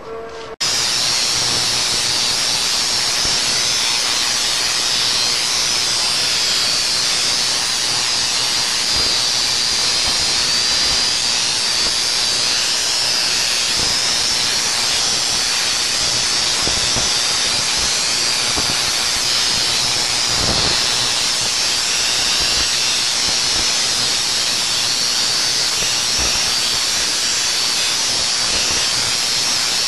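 Homemade AC spark-gap Tesla coil with water-bottle capacitors running: its spark discharges make a loud, steady hissing crackle that switches on suddenly about half a second in, with a faint low hum underneath.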